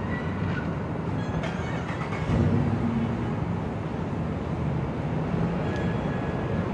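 A steady low rumble, with a brief louder swell about two and a half seconds in.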